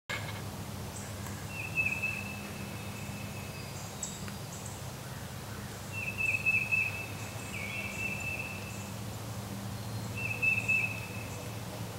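A songbird singing a high, even trill three times, the first two about two seconds long and the last one short, over a steady low hum.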